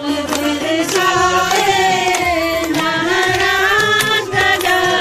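Background music: a sung Indian song with held, wavering vocal notes over a steady beat.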